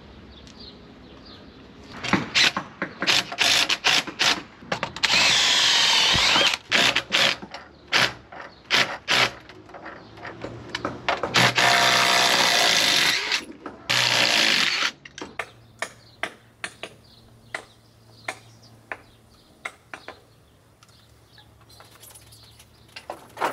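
Cordless drill driving screws into the wooden hull to fasten a steering-cable pulley block. It runs in short bursts, with three longer runs of about two seconds each. From about fifteen seconds in there are only light taps and clicks.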